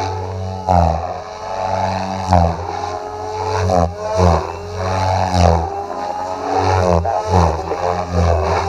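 Goblin 500 Sport electric RC helicopter in flight: its main rotor and motor make a loud, pitched whine whose pitch dips sharply and climbs back about seven times as it manoeuvres, the loudness swelling with each change.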